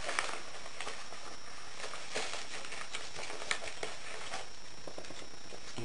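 Faint rustling and scattered light taps from hands handling a paper bag and small items on a tabletop, over a steady background hiss.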